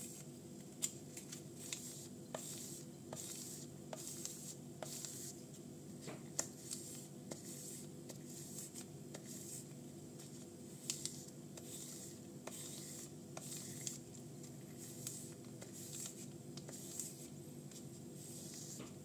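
A steel folding-knife blade (Ganzo Firebird F759M, 440C) stroked along a newspaper-wrapped wooden block: faint papery swishes about once a second, with light clicks, as the edge is stropped to finish it after sharpening. A steady low hum lies underneath.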